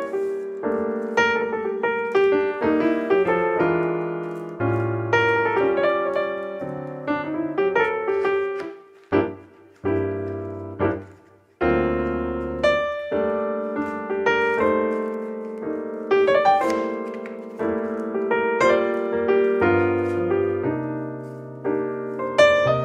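Piano music: struck notes over low bass notes, with a brief lull about nine to eleven seconds in.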